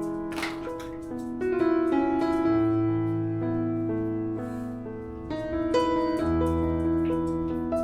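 Background piano music: a gentle melody of notes changing about every half second over held bass notes.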